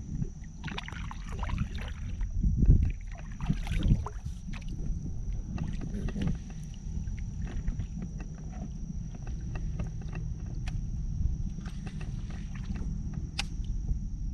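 Water sounds around a fishing kayak on a marsh: a steady low rumble with a few louder splashes and knocks in the first few seconds and scattered small clicks after.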